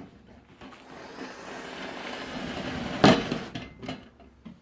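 Rustling and scraping that swells over a couple of seconds, then a loud metallic clank about three seconds in and a lighter knock shortly after, from handling the galvanized trash-can feeder.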